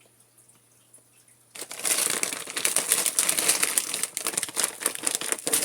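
Plastic bag of frozen pepper and onion blend crinkling as it is handled, starting about a second and a half in.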